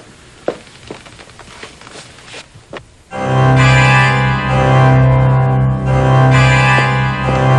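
Low room sound with a few small clicks, then about three seconds in, background music comes in suddenly: sustained keyboard chords over a steady low bass note.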